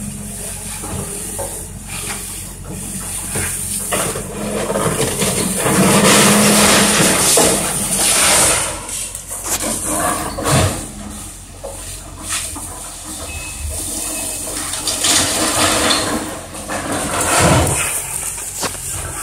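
Link-Belt excavator tearing apart a wooden house: wood crunching and splintering with sharp cracks and knocks, over the steady hum of the excavator's diesel engine and the rushing hiss of a hose spraying water on the debris. The crunching swells loudest about six to eight seconds in, with sharp knocks near the middle and near the end.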